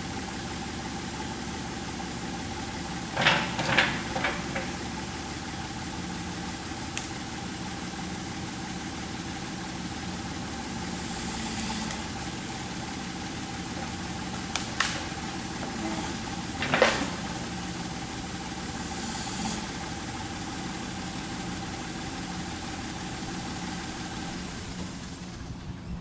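An engine idling steadily, with a cluster of sharp knocks about three to four seconds in and two more around fifteen and seventeen seconds in.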